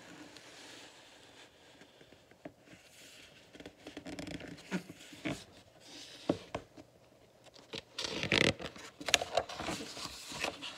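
Paper pages of a picture book being handled and turned: soft rustles and small taps, then a louder rustle of the page turning about eight seconds in.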